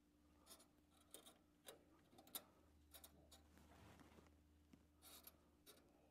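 Faint scattered clicks and light scraping of a gloved finger pushing the small metal turbulators in a furnace's heat exchanger tubes, over a low steady hum.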